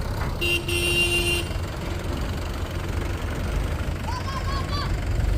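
Heavy vehicle engine idling with a steady low rumble. A short high horn toot sounds about half a second in and lasts about a second. A few short rising chirps come near the end.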